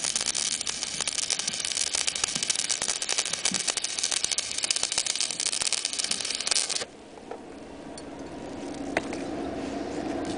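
Stick (MMA) welding arc from a Dedra DESI200 inverter welder, with a 3.25 mm covered electrode run at 200 A, crackling and sizzling steadily. The arc cuts off suddenly about seven seconds in, leaving a quieter steady hum.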